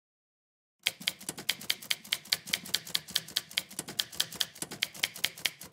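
Typewriter keys striking in a steady, even run of sharp clicks, about five a second, starting about a second in and stopping just before the end.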